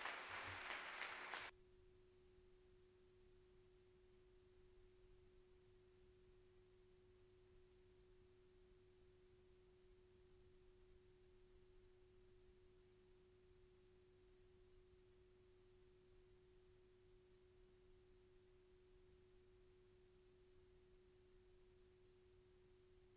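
Near silence with a faint, steady tone held at one pitch. A short burst of noise opens it and cuts off after about a second and a half.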